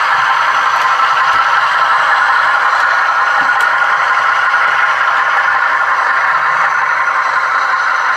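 Atlas model GE U36C diesel locomotive running, a steady engine-like noise with a light rattle, thin and with little bass.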